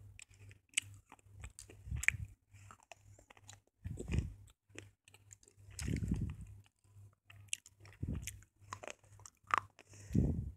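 Slate pencil being bitten and chewed: many short, sharp crunches with a heavier, deeper thud about every two seconds.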